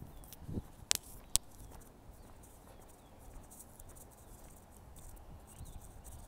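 Soft, irregular footsteps of a person walking, with faint bird chirps and two sharp clicks close together about a second in.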